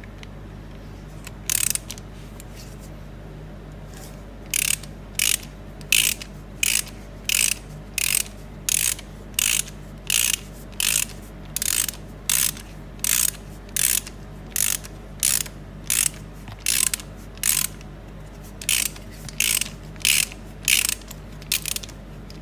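Socket ratchet on an extension clicking in short bursts as its handle is swung back on each stroke to unscrew a drain plug. One lone burst comes about a second and a half in, then steady strokes follow from about four seconds in, roughly one every three-quarters of a second.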